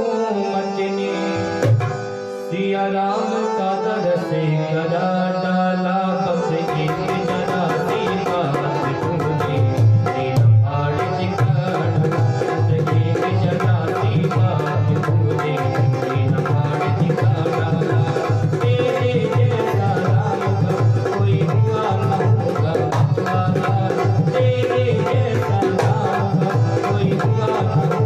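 Instrumental bhajan interlude: a dholak drum playing a fast, driving rhythm under a sustained keyboard melody, the drumming becoming denser about seven seconds in.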